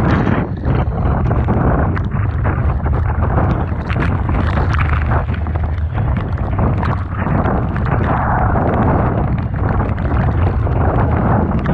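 Strong typhoon wind buffeting the microphone over the steady roar of rough sea and breaking waves, with frequent small crackles throughout.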